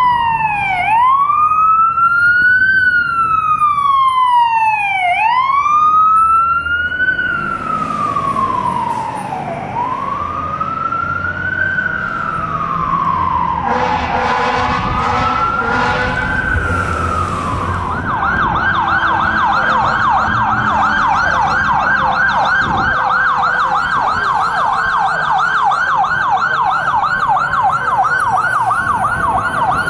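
Fire truck siren in a slow wail, its pitch rising and falling every couple of seconds. About two-thirds of the way in it switches to a fast yelp, warbling several times a second.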